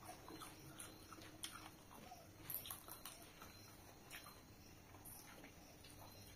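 Faint eating sounds from hand-eating rice and curry: chewing and lip smacks, with small scattered clicks as fingers mix food on a banana leaf.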